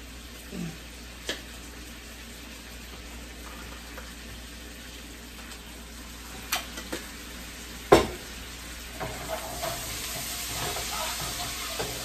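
Food sizzling steadily in a skillet on the stove, with a few clicks and one sharp knock about eight seconds in. Near the end the sizzle grows brighter as sauce is poured in and stirred, with a spoon scraping and tapping the pan.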